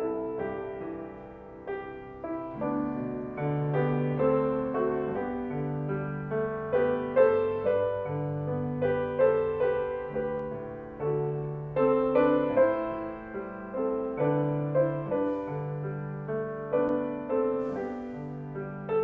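Grand piano playing a slow piece: chords and melody notes over low bass notes, each held about a second.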